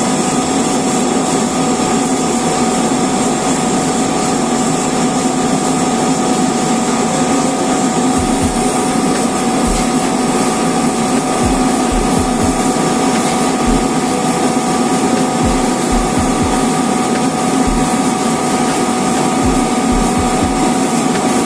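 Rotary screw air compressor running steadily under load: a constant drone with a steady whine over a hiss of air. A few short, low thumps come and go from about eight seconds in.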